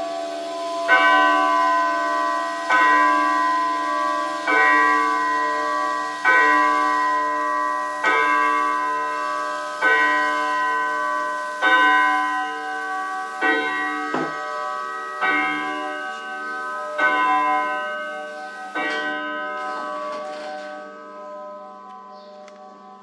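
Jolema three-train wall clock striking the hour, eleven evenly spaced blows about every 1.8 seconds. Each blow is a ringing chord of several tones that fades before the next, and the last rings away near the end.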